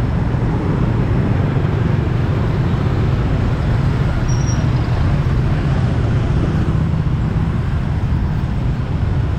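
Steady traffic noise from a busy city street of passing motorbikes and cars, an even rumble with no single event standing out.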